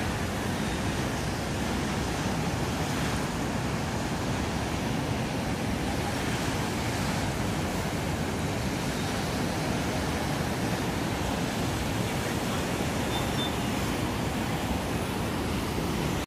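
Waves breaking and white water churning in an artificial surf pool: a steady rushing wash.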